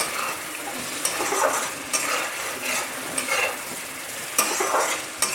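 Spatula stirring and scraping fried masala and potato pieces in a kadai, with oil sizzling under irregular scrapes. The masala is fully fried, with oil separating from it.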